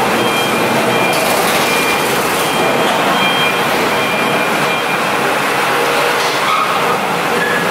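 A 700 kW diesel generator set running: a steady, loud, unbroken mechanical din with no change in speed.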